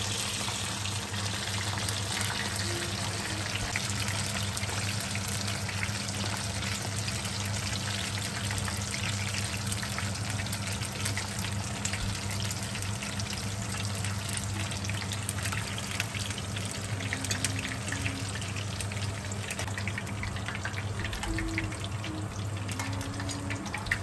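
Pakoras deep-frying in a pan of hot oil: a steady sizzle with fine crackling, over a steady low hum.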